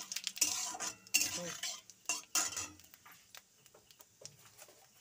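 Flat metal spatula scraping and stirring against a metal kadai as whole spices, dried chilli and bay leaf are tempered in hot oil. The scraping is heaviest for the first few seconds, then turns into a few light taps.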